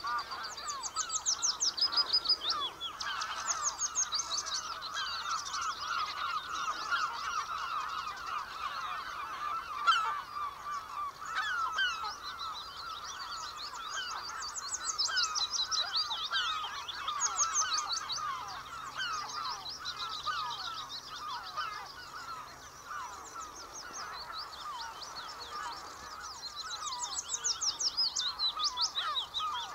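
Common whitethroat singing its short, scratchy warbling phrase several times over, with pauses between, against a continuous dense chorus of other birds' chirps and calls.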